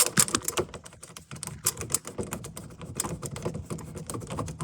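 Irregular light clicks and rattles of a plastic cover being handled and fitted back over a dishwasher's control board housing.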